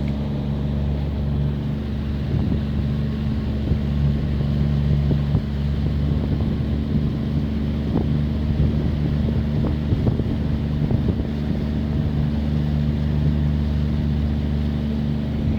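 Boat's outboard motor running steadily at trolling speed, a constant low hum, with wind buffeting the microphone.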